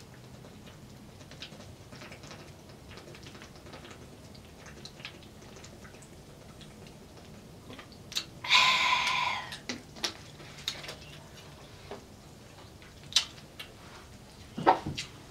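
Someone drinking from a plastic water bottle with small gulping clicks, then one loud breath blown out through pursed lips lasting nearly a second, followed by a few sharp knocks as the bottle is set down on the table.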